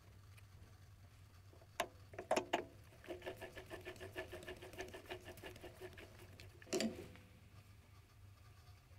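A steel bearing-end piece being screwed by hand onto an acme-threaded spindle held in a lathe collet chuck: a couple of clicks, then a run of faint, rapid metal-on-metal ticks as the threads turn. Near the end, a single metallic clunk with a short ring as pliers close on the steel part.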